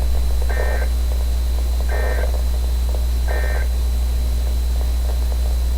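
NOAA Weather Radio SAME end-of-message data bursts: three short two-tone digital chirps about a second and a half apart, signalling the end of the alert. A steady low hum runs under them.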